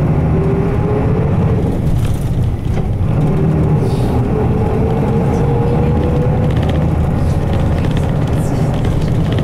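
Nissan Diesel Space Runner RM route bus's 6.9-litre FE6F diesel engine running under way, heard from inside the passenger cabin as a steady deep rumble. The engine sound dips briefly about two and a half seconds in, then its note climbs steadily as the bus accelerates.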